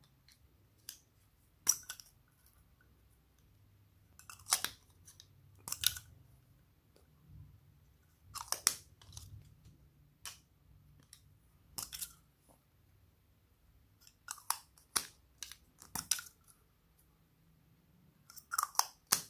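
Slime being squeezed out of plastic piping bags onto a dish of slime and foam beads: a string of short, crackly squishes and crinkles, each under half a second and spread a second or more apart.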